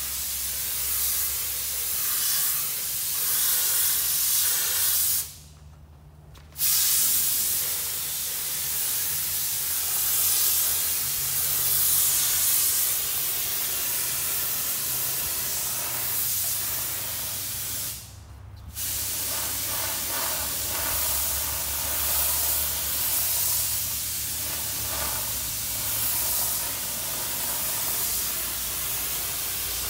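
Compressed-air spray gun hissing steadily as it sprays gelcoat mixed with metallic flake. The spray stops twice, briefly: about five seconds in, and again near eighteen seconds. A low steady hum runs beneath it.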